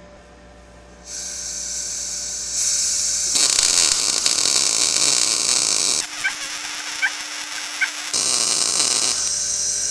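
MIG welding arc on thin steel tubing, from a Blue Demon BLUEARC 140MSI 110 V inverter, sizzling steadily with a crackle. It starts about a second in and runs in several stretches that shift in character. The even sizzle is the sound of a good weld, made with the shielding gas turned down from too high a flow that had caused porosity.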